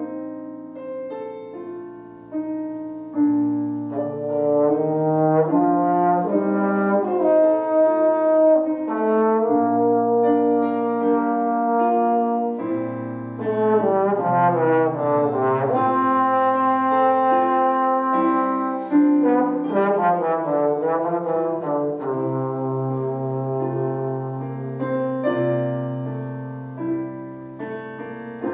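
Trombone playing a classical solo passage: held notes alternating with quick runs that sweep up and down in pitch, about halfway through and again later.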